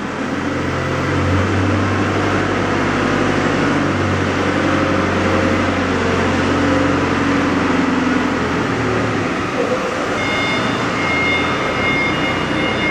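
FL-2030 CNC router with vacuum table running while cutting wood: a loud, steady machine noise from the spindle, the vacuum and the cut, with a low hum underneath. A few high, steady whine tones come in about ten seconds in.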